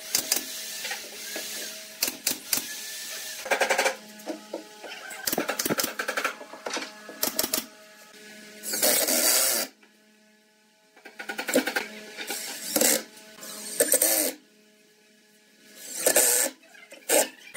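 Cordless drill driving screws into pallet-wood boards in several short runs, with knocks of wood being handled in between.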